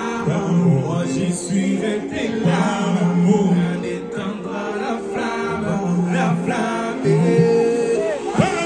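Live pop concert: male singers performing into microphones over a backing track, with little deep bass in this stretch.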